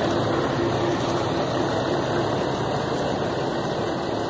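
Truck engine idling steadily.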